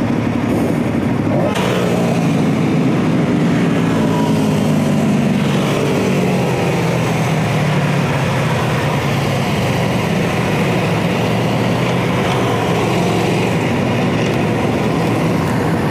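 Aprilia RSV4 RF's V4 engine pulling away and accelerating through the gears, its pitch rising and falling, with wind rushing past.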